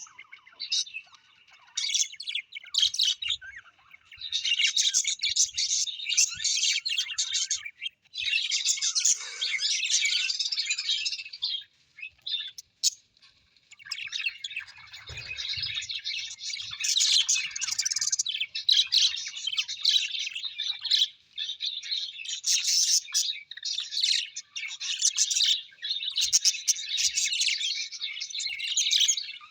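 Several birds chirping and chattering in dense, rapid, high twittering bouts, with a pause of about two seconds near the middle.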